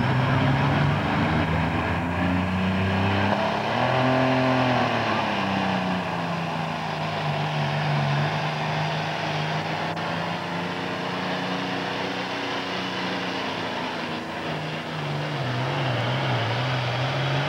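Super farm class pulling tractor's diesel engine running hard. Its pitch rises and falls back about four seconds in, then holds steady.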